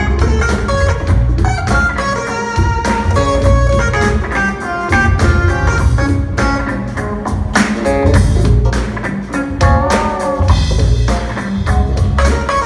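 Live jazz-funk band playing, heard from the audience in a concert hall: keytar, guitars and drum kit over a heavy, rhythmic bass line. A bent, wavering lead note comes about ten seconds in.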